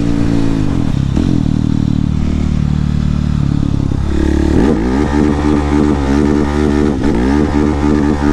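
Husqvarna 701 supermoto's single-cylinder engine heard from inside the rider's helmet. The revs drop in the first second and hold lower for a few seconds, then rise sharply about four and a half seconds in as the bike pulls hard again.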